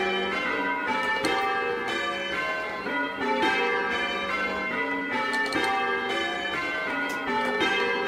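The church's ring of bells (tenor about 11 cwt, in G) rung full circle by a band of ringers. The bells strike one after another in quick, even succession, their tones overlapping and ringing on, as heard from the ringing chamber below them.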